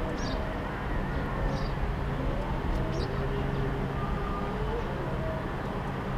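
Tour boat's motor running steadily, a low even hum.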